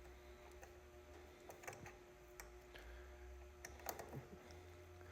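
Faint, scattered light clicks and ticks from small parts being handled, a few in the middle and a couple near the end, over a low steady hum.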